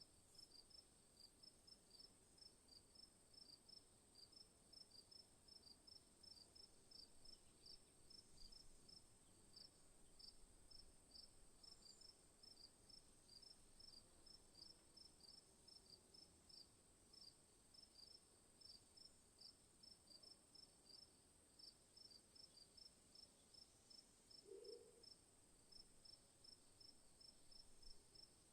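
Faint night-forest insect chorus: a steady high-pitched drone with an even train of short, high chirps, several a second. A single brief, lower call breaks in about 25 seconds in.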